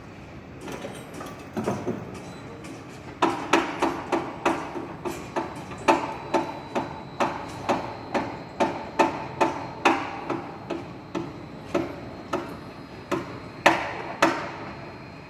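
Hammer blows at a steady pace of about two a second, each strike ringing briefly, with a few lighter taps before they start and one harder blow near the end.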